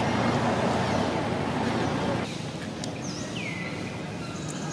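Outdoor background with a steady low rumbling noise that drops away suddenly about two seconds in, leaving quieter ambience with a couple of short, high falling chirps.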